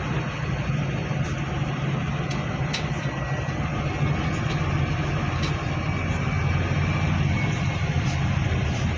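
Steady low rumble of a road vehicle's engine, with a few faint clicks.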